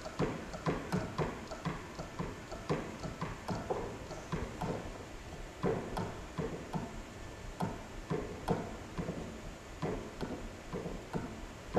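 Hydraulic hand pump being worked to build pressure in the tensioning tool, giving a steady run of irregular clicks and knocks, about two to three a second, some in quick pairs.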